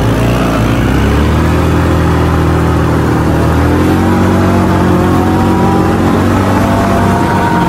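Engine noise on a gravel road: a child's small ATV pulls away with its engine pitch rising over the first second, then a steady engine drone with gentle rises and falls in pitch, over a haze of wind and road noise.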